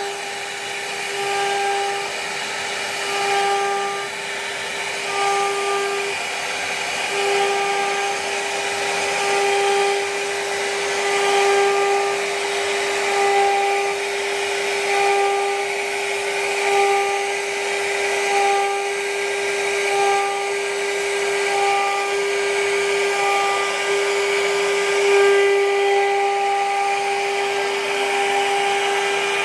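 CNC router spindle carving a relief pattern into wood with a small router bit: a steady high-pitched spindle whine over the hiss of the cutting, swelling and easing every second or two as the bit works along the grooves.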